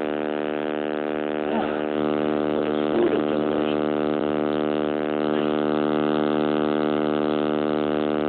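Loud, steady electrical buzz from a damaged phone microphone, one unchanging pitch with many overtones, with faint voices barely showing through it.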